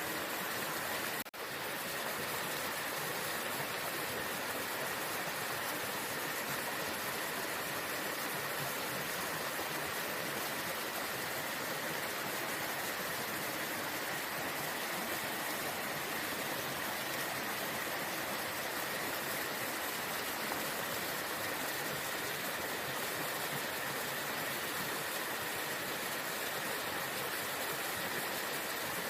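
Waterfall: steady rushing water, with a momentary dropout about a second in.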